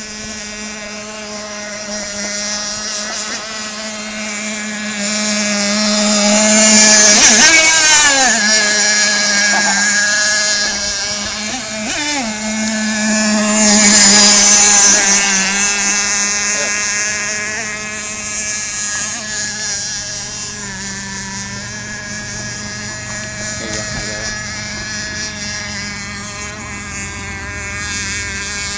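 Pro Boat Shockwave 36 RC boat's .32 nitro engine running at speed with a steady high-pitched whine. It grows loud twice as the boat passes close by, about a quarter of the way in and again about halfway, and its pitch drops as it goes past.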